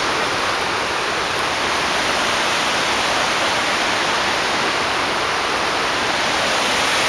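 Dead River in spring runoff pouring over a drop: a loud, steady rush of whitewater.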